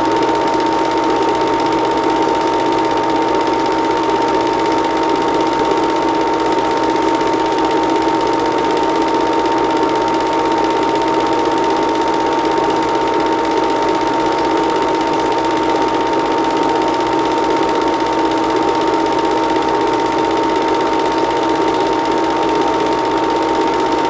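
Film projector running: a steady mechanical whir with a fast, even clatter and a constant hum.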